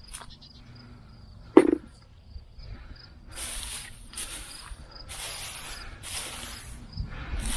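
Dry hay mulch rustling as it is pulled away by hand, in several bursts through the second half, with one sharp thump about a second and a half in. Insects chirp steadily in a quick, even pulse throughout.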